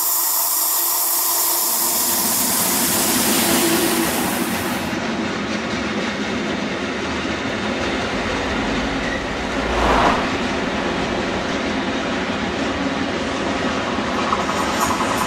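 A train running on rails, a steady rolling rumble with a strong high hiss over the first few seconds and a brief swell about ten seconds in.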